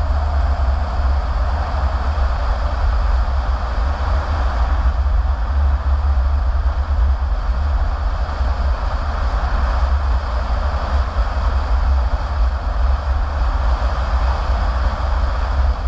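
Steady road noise inside a moving car: a constant low rumble with tyre hiss on the pavement, unchanging throughout.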